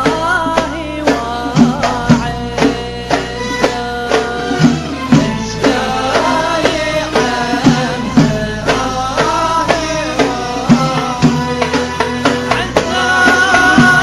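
Middle Eastern-style song: a singing voice and melody over a steady hand-drum beat.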